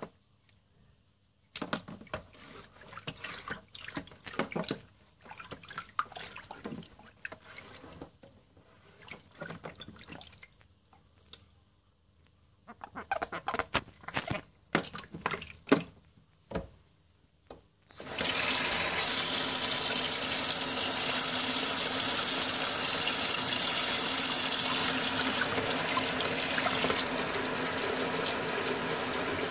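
Water sloshing and splashing in irregular bursts as a smartphone is moved about in a shallow sink. About eighteen seconds in, a tap is turned on and runs steadily into the sink, easing slightly near the end.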